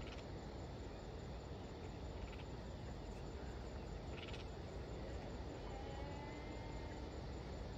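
Steady outdoor background rumble with a few short insect chirps, and a faint gliding whistle around the middle.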